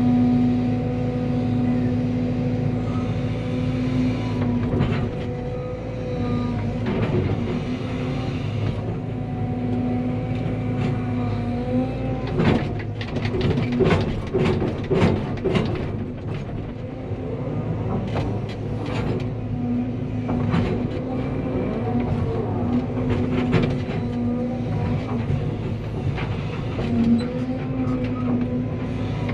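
Cat 320 excavator's diesel engine running steadily. About halfway through comes a few seconds of clanking and knocking.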